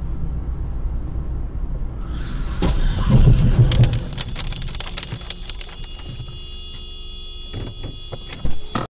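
Steady road rumble heard from inside a moving car, then about three seconds in a loud crash of cars colliding, with crunching impacts and scattered clatter of debris. A steady tone and scattered clicks follow, with one sharp bang near the end before the sound cuts off.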